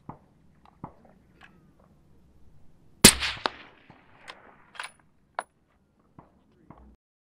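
A single shot from a 6.5 Creedmoor Thompson/Center Compass bolt-action rifle fitted with a homemade 9-inch Form 1 suppressor: one sharp report about three seconds in, with a short ringing tail. Several fainter clicks come before and after it.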